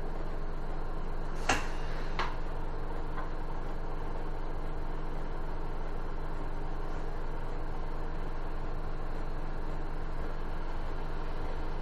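Isuzu city bus's engine idling steadily while the bus stands still, heard from inside the cabin, with two sharp clicks about a second and a half and two seconds in and a fainter one soon after.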